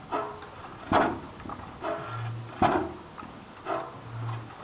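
100-horsepower hit-and-miss stationary gas engine with twin flywheels running, firing with a sharp bang twice about 1.7 seconds apart, with lighter clacks and short low hums in between.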